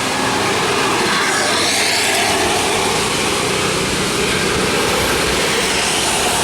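A large bus passing close by, its engine and tyres making a loud, steady rushing noise with no horn.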